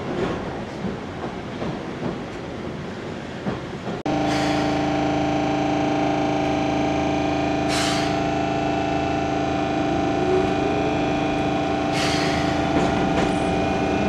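Keihan 700-series train: the low rumble of the car rolling slowly, then, after a sudden cut about four seconds in, a steady electric hum from the train's equipment made of several fixed tones. Two short hisses of air break into the hum.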